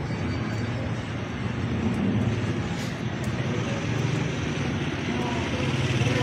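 Steady low rumble of urban outdoor background noise, with a few faint ticks.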